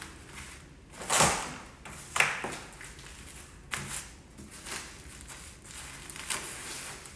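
Plastic cling wrap rustling and crinkling in several short bursts as it is rolled tightly around a cake roll on a countertop, loudest about one and two seconds in.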